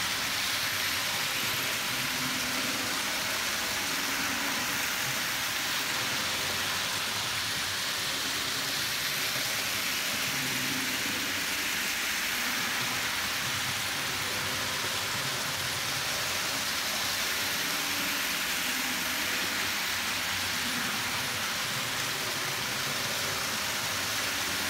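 TT scale model freight trains running on the track: the electric motors and gearing of HP Products 0-6-0 steam locomotives and the wheels of the freight cars rolling on the rails make a steady, even rolling noise.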